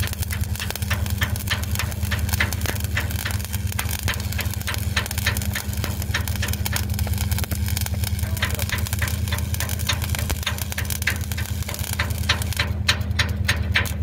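Overhead (4G) stick welding on a steel hull: the electrode arc crackles and spits, a few sharp cracks a second, over a loud steady low hum.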